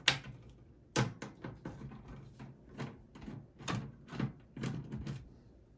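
Phillips screwdriver backing motherboard screws out of a steel PC case: a sharp metallic click right at the start and another about a second in, then a run of lighter clicks and scraping ticks as the screwdriver works the screws.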